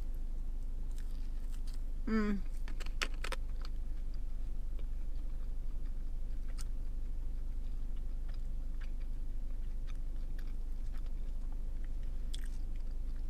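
A person chewing crunchy, chewy French toast sticks, with small crunches and wet mouth clicks. A brief hum of the voice comes about two seconds in, over a steady low hum.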